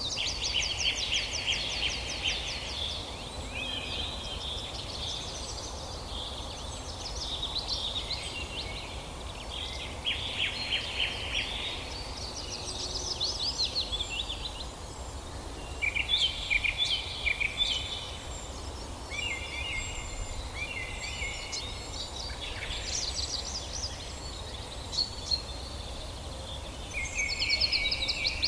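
Several songbirds singing at once: overlapping rapid trills and chirps, one phrase after another with short gaps, over a steady low rumble.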